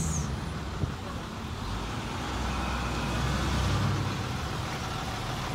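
School bus engine running as the bus drives up a residential street toward the listener, over general street traffic; the low engine rumble swells about three to four seconds in as it comes closer.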